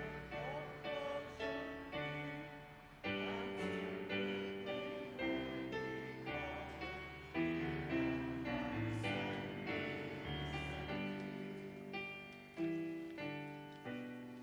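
Piano playing a slow hymn tune, full chords struck and left to ring and fade.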